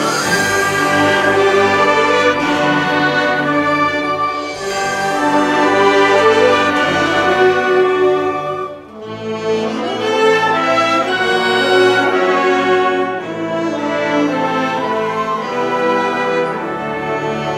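Concert band of woodwinds and brass playing an arrangement in full ensemble, with a brief drop in volume about nine seconds in before the whole band comes back in.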